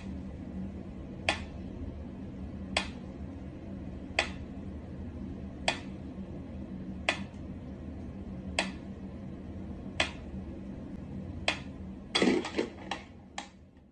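Mechanical pendulum metronome ticking slowly and evenly, one sharp tick about every second and a half, over a steady low hum. Near the end comes a short flurry of louder knocks and clatter.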